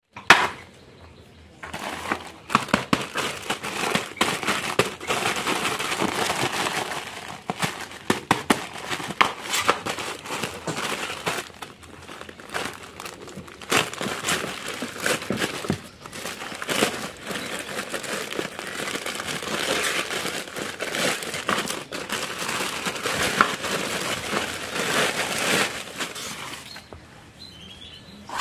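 Plastic courier mailer bag being handled and opened by hand, its plastic crinkling and rustling with many short sharp crackles, fading near the end. A single sharp knock comes right at the start.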